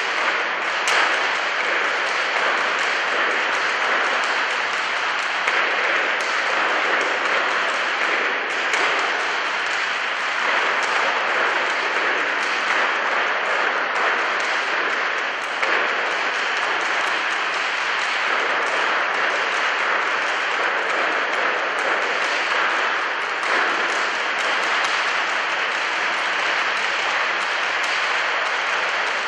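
Steady audience applause, a dense even clapping.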